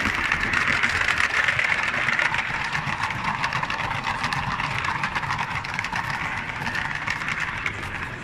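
Model train running on an exhibition layout: a steady whirring from the small motor and wheels, with fine rapid clicking on the track, easing off slightly towards the end.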